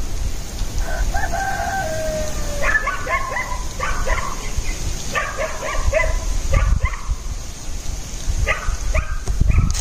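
A rooster crowing once, one long call that drops in pitch at its end, followed by a run of short chicken calls, over a steady low rumble.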